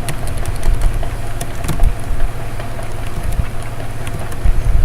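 Computer keyboard keys clicking at an irregular pace, over a steady low hum.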